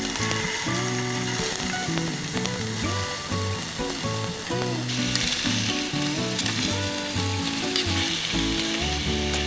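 A small wood fire of dry twigs and firewood crackling in a folding card-style fire stove, with many fine pops, under background music with a slow stepping melody.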